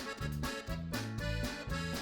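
Background music: a melody of held notes over a bass line that moves in short, even steps.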